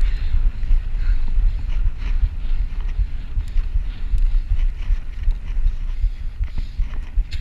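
Wind buffeting an action camera's microphone on a fast road-bike descent: a heavy, gusting low rumble with a fainter hiss above it.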